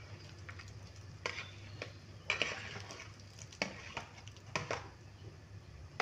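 A spatula scrapes and taps against a plastic tray as diced tofu is pushed off it into a wok of boiling broth: a string of sharp clicks and scrapes, with the cubes dropping into the liquid. A steady low hum runs underneath.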